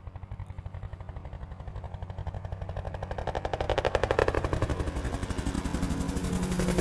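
Crop-dusting helicopter making a low pass, its rotor blades giving a rapid, even chop that grows louder as it approaches and is loudest about four seconds in.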